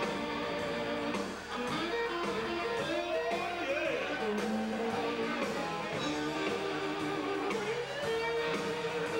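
A live Chicago-style blues band playing, with guitar and upright bass under a lead line of held and bent notes.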